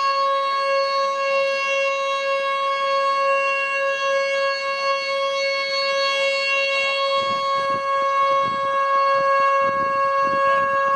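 Federal Signal Model 2 siren sounding a steady, unbroken tone at full speed, heard through a phone's microphone. Low rumbling bumps mix in during the last few seconds.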